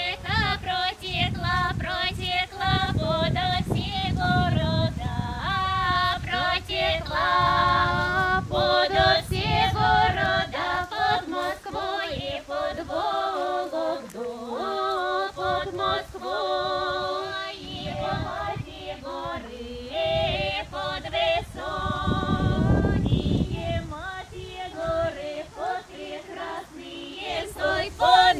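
A group of women singing a Russian folk song of welcome together.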